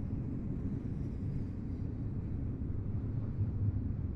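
Freight train of tank cars rolling past, making a steady low rumble.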